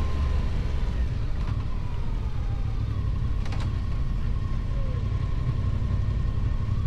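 Kove 625X Adventure motorcycle with its stock exhaust, ridden at a steady pace with a steady low engine rumble and a faint high whine. There are two brief clicks, about one and a half and three and a half seconds in.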